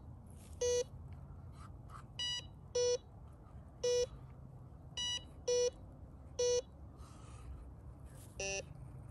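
Metal detector beeping about eight times at irregular intervals as its search coil passes over a freshly dug hole, signalling a target. Most beeps are low-pitched and a couple are higher, the tone changing with the reading.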